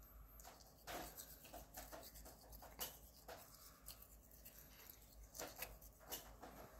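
Faint, irregular scratching of a small cat toothbrush's bristles brushing over a cat's teeth, in short strokes.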